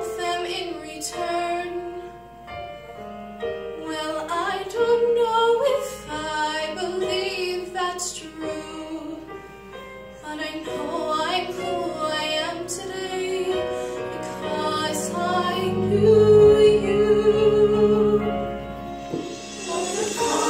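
A girl's solo singing voice through a microphone over musical accompaniment; near the end the sound fills out as the choir comes in.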